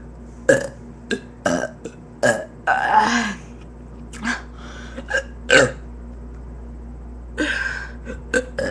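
A person belching over and over: a quick string of short burps, a longer one about three seconds in, then after a pause of over a second a few more burps near the end.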